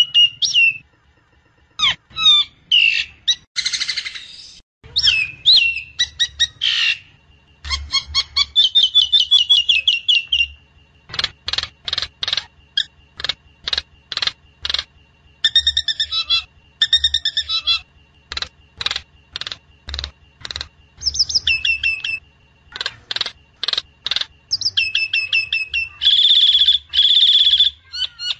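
Jalak nias myna singing a long, varied song of warbled whistles and quick runs of sharp clicking notes, ending in loud, harsh repeated phrases. It is a lure recording (pancingan) used to get a captive myna singing loudly.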